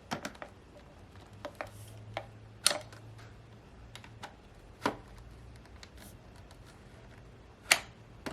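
Irregular sharp plastic clicks and knocks as steam mop parts are pushed and fitted together, with the two loudest clicks about a third of the way in and near the end, as the handle section is worked into the main body until it locks.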